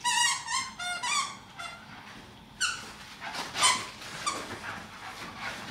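A quick run of high-pitched squeaks in the first two seconds, and another falling squeak about halfway, followed by scuffling, as two Staffordshire bull terriers tussle over a toy in tug-of-war play.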